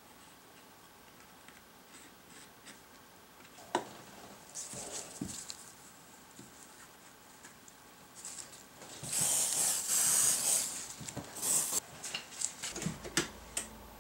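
Handling sounds at a workbench as wooden parts and a small square are moved about: a sharp click a little under four seconds in, light knocks, then about a second and a half of rubbing around nine seconds in, followed by a few more clicks.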